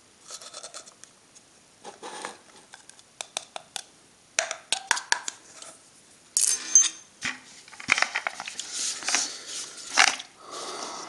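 Clinks, taps and scrapes of a metal flux tin, its lid and a small plastic pot being handled on a steel workbench as a little Solar Flux powder is put into the pot. Scattered short clicks, busiest about six seconds in.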